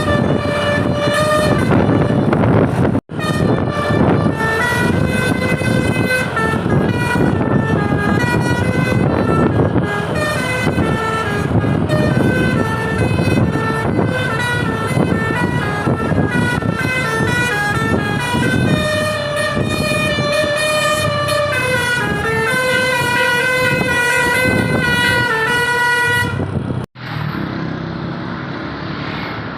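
Seven-trumpet telolet bus horn playing a tune in quick stepped notes over engine and street noise. The sound breaks off sharply about three seconds in and again near the end, after which only a duller, muffled noise remains.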